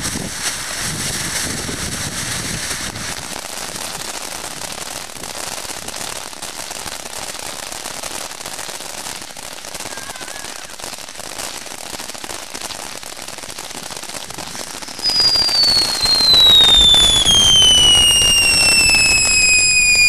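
Ground fountain firework hissing and crackling as it sprays sparks. About 15 seconds in, a loud whistle starts and falls steadily in pitch for about five seconds.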